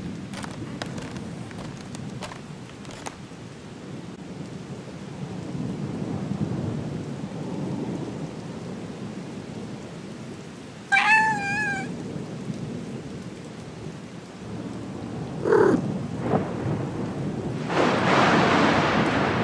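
Steady rain with low rumbles of thunder. A cat gives one long, wavering meow about halfway through and a second, shorter meow a few seconds later; near the end a louder rush of noise swells up.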